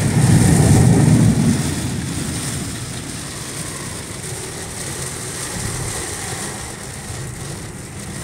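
Steady road and rain noise inside a car driving through heavy rain on a flooded street: tyres on the wet road and rain on the body and windshield. A louder low rumble fills the first second and a half, then it settles to an even rush.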